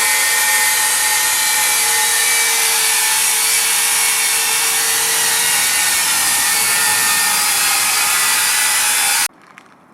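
HiKOKI 36V C3607DA cordless circular saw running at a steady speed, a constant whine with blade hiss, until it cuts off suddenly about nine seconds in.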